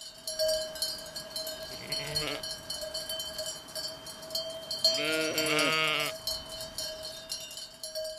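Sheep bells clinking and ringing steadily from a grazing flock, with sheep bleating: a short bleat about two seconds in and a longer, louder one about five seconds in.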